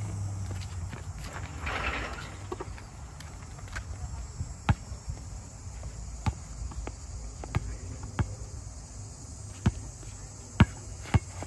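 Basketball dribbled on a hard outdoor court: sharp, separate bounces at uneven intervals, coming more often in the second half.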